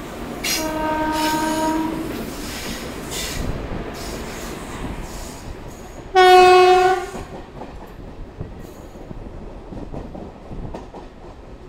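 Train horn sounding twice: a blast of about a second and a half near the start, then a louder, shorter blast about six seconds in. Under both runs the steady wheel-on-rail and running noise of a moving suburban EMU, heard from its open doorway.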